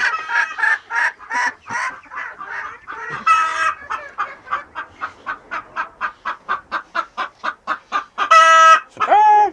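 Silkie chickens clucking in a quick, steady run of short clucks, about three to four a second, with a louder harsh call about three seconds in and two loud, drawn-out squawks near the end.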